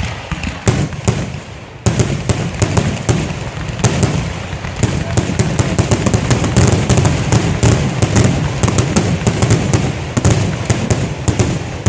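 Fireworks crackling in a dense, rapid run of sharp pops over a low rumble. The run gets suddenly louder about two seconds in and keeps going.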